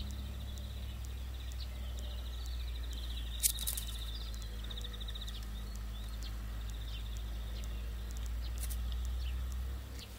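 Outdoor garden ambience: a steady low rumble with a high, rapid trill that comes and goes, and one sharp click about three and a half seconds in.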